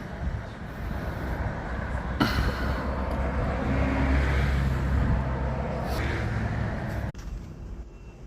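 Low mechanical rumble with a steady hum, swelling through the middle and cutting off abruptly about seven seconds in, leaving a quieter hiss.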